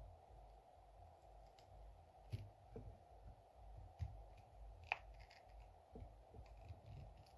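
Faint scratching and a few small clicks of a metal pick working around the edge of a chainsaw carburetor's rubber metering diaphragm to lift it from its metal cover, with the sharpest tick about five seconds in.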